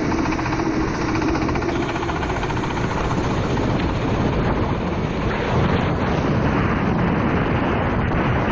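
Four-stroke racing kart engine running, with a steady engine note for about the first two seconds, then lost under a broad rushing noise of wind on the microphone.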